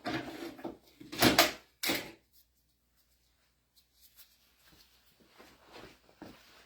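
Three loud clattering, scraping handling noises within the first two seconds, like tools being moved on a bench or in a drawer, then only faint light taps and rustles.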